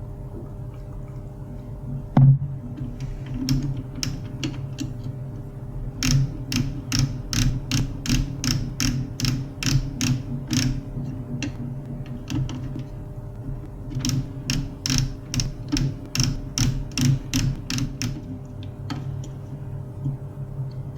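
HP LaserJet 401 laser printer running its motor and gear train with a steady hum, a single knock about two seconds in, and two runs of evenly spaced clicking at about three clicks a second.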